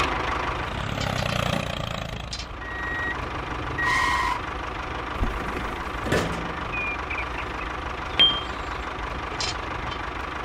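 A small motor running steadily, with a few short high beeps scattered through it.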